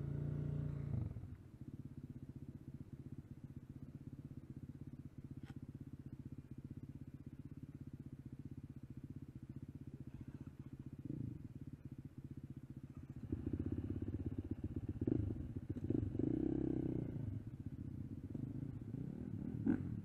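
Dirt bike engines idling with a steady low chug. A louder engine note drops away about a second in, and the engine picks up again with short throttle blips between about 13 and 17 seconds.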